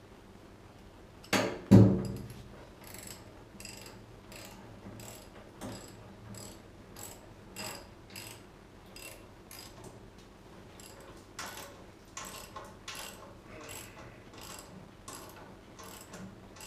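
Two sharp metal knocks, then a socket ratchet clicking steadily about twice a second as the 9/16 nut on a concrete wedge anchor bolt is tightened, drawing the anchor up to set it in the floor and hold the safe down.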